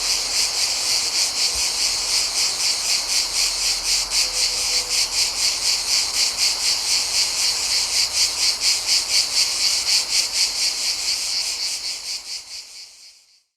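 A chorus of cicadas chirping in a dense, high-pitched buzz that pulses about four times a second, fading out near the end.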